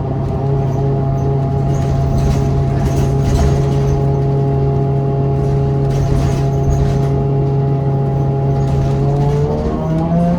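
New Flyer XDE40 diesel-electric hybrid bus running with a steady, horrible-sounding drone made of several held tones, which bend upward in pitch near the end as the bus speeds up.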